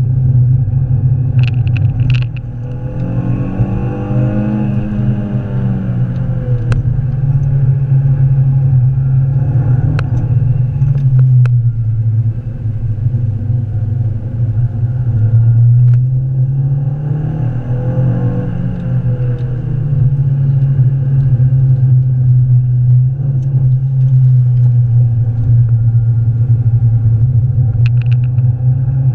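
Renault Clio 182's 2.0-litre four-cylinder engine at hard track driving, heard from inside the cabin, its pitch rising under acceleration and dropping as the driver lifts off, with a few short clicks.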